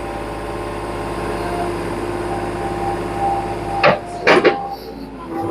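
An engine idling with a steady hum, with a sharp knock about four seconds in and a few lighter knocks just after.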